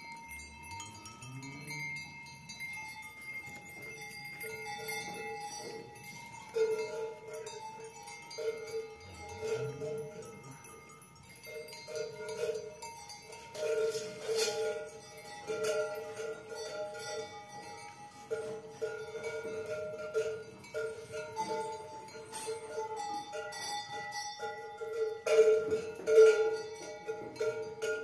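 A metal bell, most likely a cowbell on cattle moving in the barn, clanks over and over on the same note at an uneven pace.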